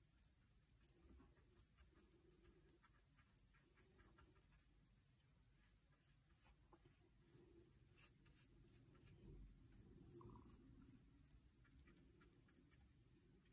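Faint, irregular scratching and dabbing of a small bristle brush working epoxy into fiberglass cloth on a fiberglass fuselage, close up and very quiet.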